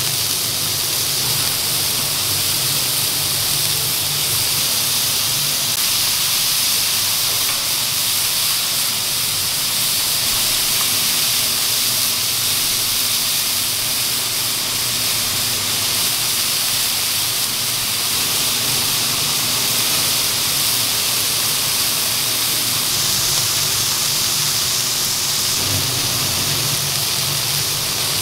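Beef burger patties sizzling steadily in their fat on a stainless flat-top griddle, a dense even hiss, with a steady low hum underneath.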